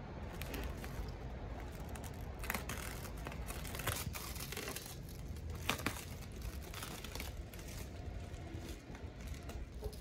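Clear plastic stretch wrap crinkling and tearing as it is pulled off a cardboard box, with irregular sharp crackles.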